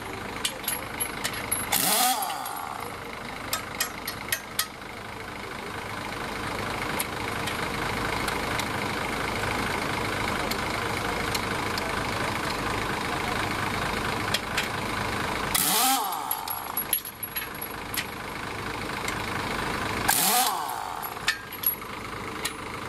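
An engine idling steadily, with three short, loud bursts of the kind a pneumatic impact wrench makes on wheel nuts (about two seconds in, and twice near the end) and a few metallic clicks. The blown tyre is being taken off a bus's rear wheel.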